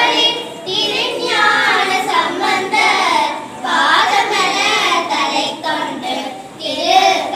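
Children singing a song, in phrases broken by short pauses about every three seconds.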